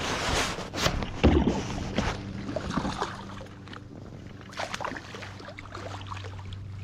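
Water splashing and sloshing beside a small boat, with a few knocks against the hull, as a big hooked pickerel thrashes at the side. The splashing is loudest in the first two seconds, then fades to scattered small splashes over a steady low hum.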